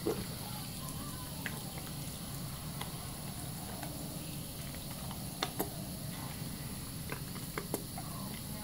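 A tap running a thin stream into a sink under hands working thick bar-soap lather, with soft wet squelches and pops of foam; a few sharper pops come about five and a half and seven and a half seconds in.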